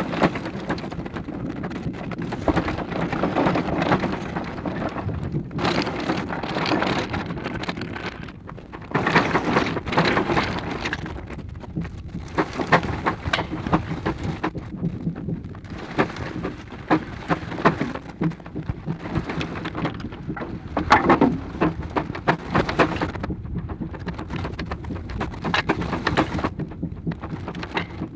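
Steam traction engine running, heard through a badly deteriorated 16mm magnetic soundtrack as a dense crackling, rain-like noise that swells and drops every second or two.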